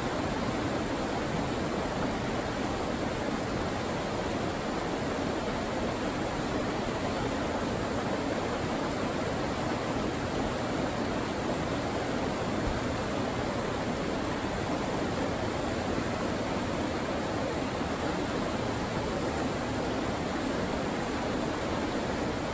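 Fast river water rushing steadily over rapids.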